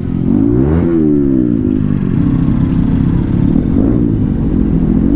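Motorcycle engine running at idle, revved once about a second in with a rising and falling pitch, then settling back to a steady idle, with a smaller blip near the end.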